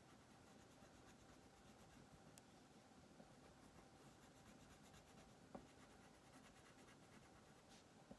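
Faint scratching of a wax crayon on paper in repeated short coloring strokes, with a soft tap a little past halfway.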